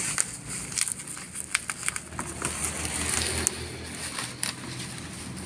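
Irregular crackling and clicking of packaging being handled as a digital scale is unboxed, over a steady low rumble.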